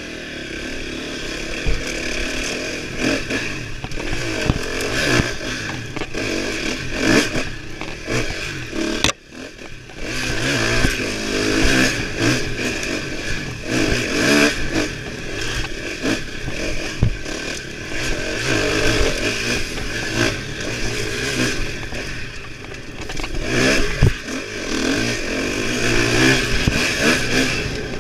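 KTM dirt bike engine running hard on a woods trail, revving up and backing off again and again with the throttle, with knocks and clatter from the bike over the rough ground. The engine note drops briefly about nine seconds in, then picks up again.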